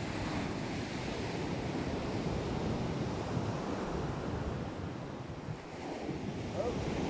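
Sea surf washing onto the shore as a steady rushing noise, with wind buffeting the microphone.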